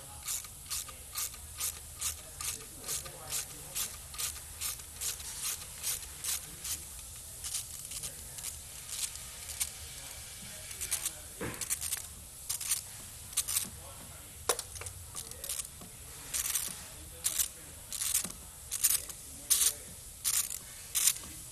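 Ratchet clicking as a size 10 female Torx bit loosens the injector hold-down bracket bolts: a steady run of about three clicks a second, a pause, then shorter irregular runs of clicks.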